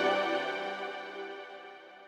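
Background music with sustained keyboard-like tones, fading out steadily.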